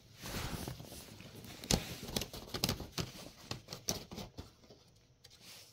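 Nylon pop-up cat tunnel rustling and crinkling, with irregular scratches and taps as a cat scrambles about inside it; the noise dies away after about four and a half seconds.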